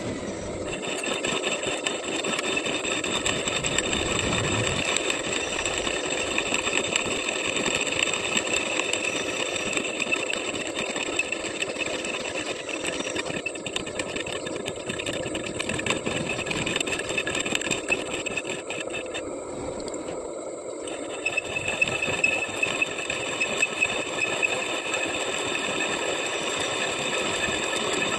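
Metal lathe turning a welded steel hydraulic shaft while a cutting tool cuts into the weld bead at the shaft-to-clevis joint: a steady machine run with a high ringing tone from the cut. The high tone stops briefly about twenty seconds in, then comes back with a few sharp clicks.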